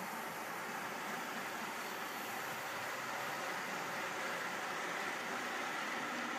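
OO gauge model diesel locomotive hauling a rake of Dogfish ballast hopper wagons along the track: a steady running rumble of motor and wheels on rail, growing slightly louder as the train passes.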